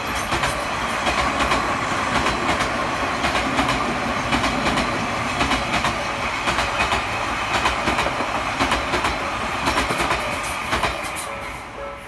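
Odakyu 3000 series electric commuter train passing over a level crossing, its wheels clattering over the rail joints in a run of quick, rhythmic clacks. The noise swells as the train arrives and fades near the end as the last car clears.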